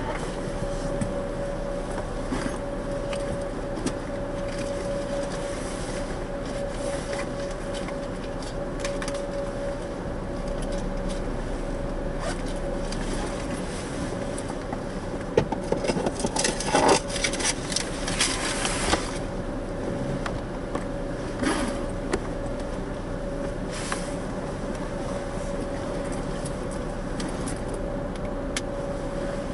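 Steady hum of a car waiting with its engine running, heard from inside the cabin, with a thin steady whine under it. About halfway through there are a few seconds of louder clattering and crackling.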